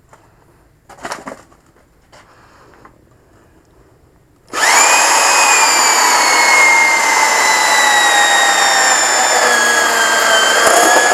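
A few faint handling clicks, then about four and a half seconds in a Portaband portable band saw starts suddenly and runs loud. Its whine slowly sags in pitch as the blade cuts through a steel-belted car tire.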